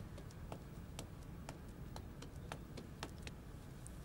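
Faint cutlery clicking on plates, irregular light ticks several times a second.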